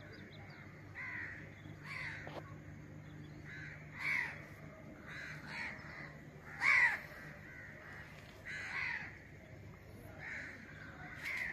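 Crows cawing, a dozen or so short calls spaced out through the stretch, the loudest about seven seconds in, over a faint steady low hum.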